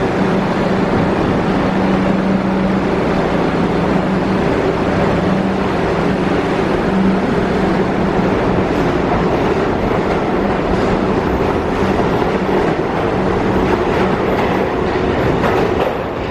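Bombardier R62A subway train pulling out of the station. A steady hum fades out about halfway through, and then the wheels clatter repeatedly over the rail joints.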